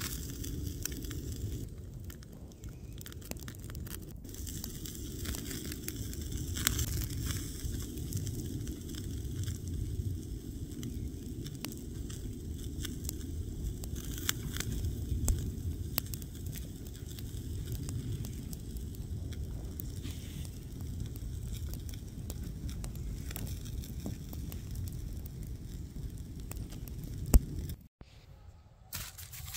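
Small wood campfire burning under a wire grill grate: scattered crackles and pops over a steady low rumble, with one sharp snap near the end.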